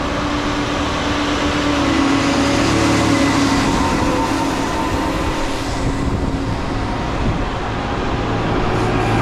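A Harsco MK IV track tamper and a ballast regulator rolling past close by on the rails, their engines running with a steady drone and their steel wheels rumbling over the track.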